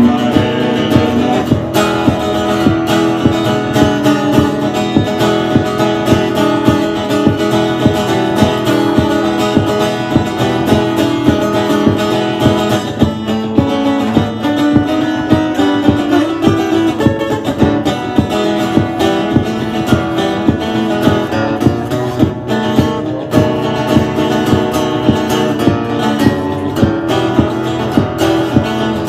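Guitar playing a country instrumental break, picked and strummed with regular accented beats.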